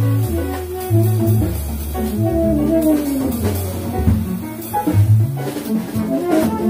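Small jazz band playing live: upright double bass walking a line of low notes, drum kit with cymbals, piano, and a tenor saxophone carrying a melodic line.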